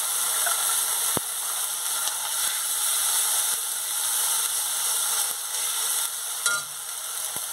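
Onion paste and ginger paste sizzling in hot oil in a metal kadai, stirred around with a spatula. The spatula knocks sharply against the pan about a second in and again near the end.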